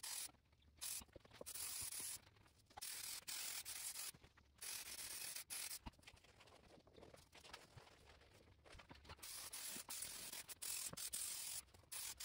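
Aerosol headliner spray adhesive hissing in repeated short bursts, each lasting up to about a second, as the can is sprayed on and off over the headliner board and fabric.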